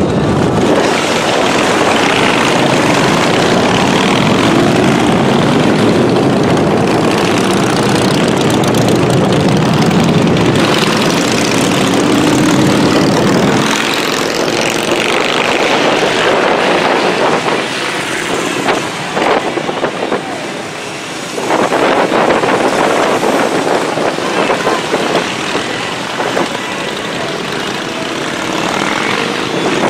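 Engines of many motorcycles running together in a continuous loud drone, changing in character about halfway through and dipping briefly near two-thirds of the way.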